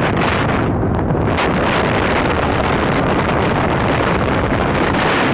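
Wind rushing over the microphone in a car travelling at highway speed, mixed with road noise: a loud, steady rush.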